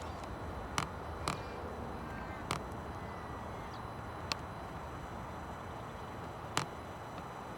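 Tripod head clicking and knocking five times, at uneven intervals, as the camera is panned. Behind the clicks is a steady low rumble.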